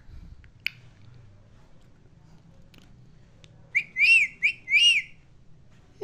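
Indian ringneck parrot giving a quick run of about four short whistled notes, each rising and falling in pitch, a little over halfway through. A single sharp click comes earlier.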